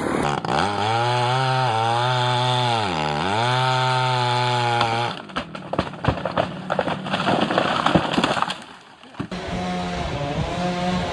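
Two-stroke chainsaw running at speed, its pitch sagging twice as it loads up in the cut. It stops about five seconds in, followed by a few seconds of cracking and knocking. Near the end another engine runs steadily and more quietly.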